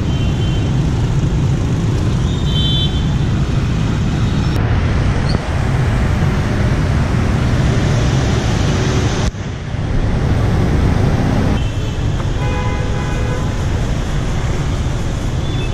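Steady traffic noise of scooters, motorbikes and cars on a busy city street. Short horn beeps sound near the start, about two and a half seconds in, and again near the end.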